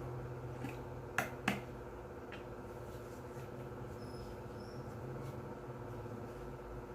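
Two sharp clicks about a third of a second apart, a little over a second in, with a few fainter ticks, over a steady low electrical hum.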